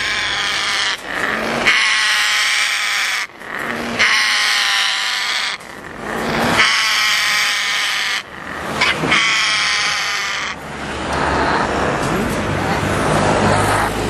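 African grey parrots calling loudly in a cage: a string of long calls, one after another with short breaks between them, the last few rougher and noisier.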